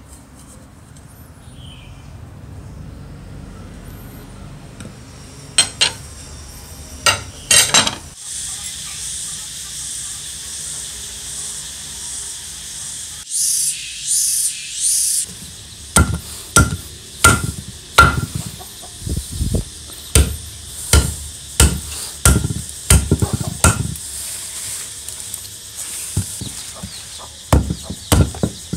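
Restored nakiri-style cleaver chopping into a green tree branch on a wooden block: a run of sharp wooden chops, roughly one or two a second, through the second half, with a short pause near the end. Before that there are a few scattered clicks and knocks.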